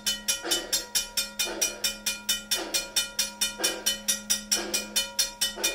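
Safetran railroad grade crossing bell ringing in rapid, evenly spaced strokes. It signals that the crossing has been activated by the train detector and the gates are coming down.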